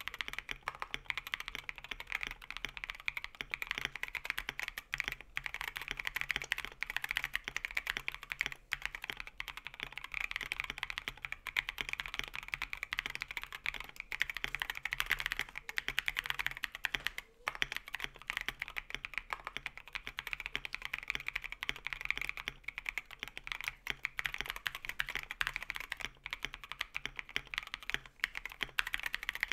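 Mechanical keyboard with Tecsee Metal Coated linear switches being typed on: a fast, continuous run of keystrokes, with a brief pause about seventeen seconds in.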